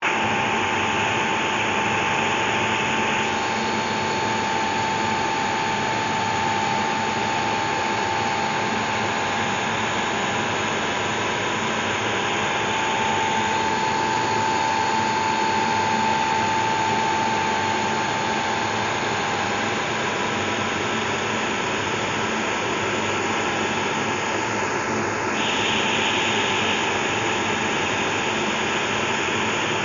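Loud, steady machine whir with a constant whine running through it, the sound of a running motor.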